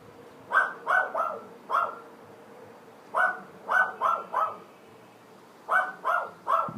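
Loud, echoing animal calls: short bark-like calls in quick runs of four, one run about every two and a half seconds. The uploader takes them for an unfamiliar bird.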